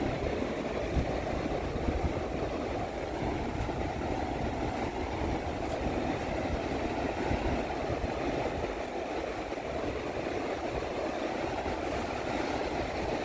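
Steady rumble of wind buffeting the microphone over the wash of surf breaking on the beach.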